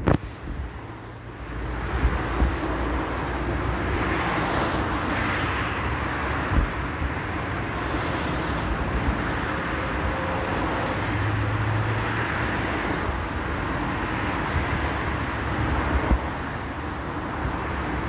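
Steady road traffic noise, with a few short low thumps.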